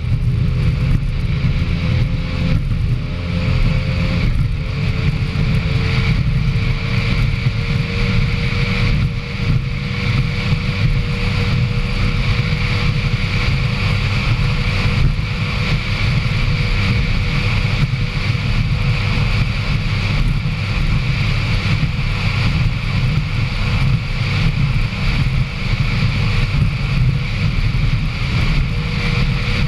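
Racing powerboat's engines running at high speed, heard from the boat's own deck, with heavy wind buffeting on the microphone. The engine note wavers for the first few seconds, then holds steady.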